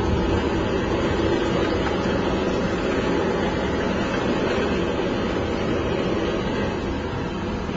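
Steady rushing, rumbling noise of a toy car rolling fast downhill, its wheels running over the ground, with no distinct knocks or pitch changes.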